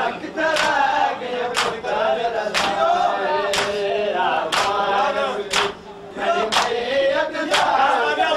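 Men chanting a noha, a Shia lament, together, with a sharp hand-on-chest strike of matam about once a second, keeping time with the chant.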